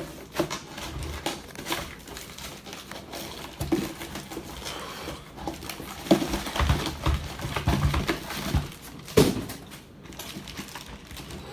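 Stiff plastic toy packaging being handled and pulled apart: irregular clicks, knocks and crinkling, with a few sharper knocks.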